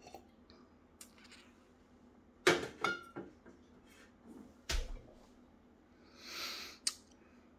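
A glass tasting glass handled on a stainless-steel bench: a few light clinks and knocks, one with a brief ringing tone, then a duller thump as it is set down, followed by a short hiss near the end.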